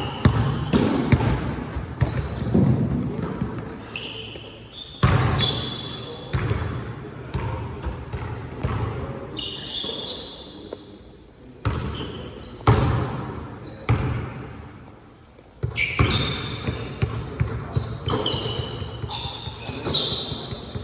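Basketball game play: the ball bouncing and thudding on the court again and again, with short high sneaker squeaks on the floor and players' voices calling out.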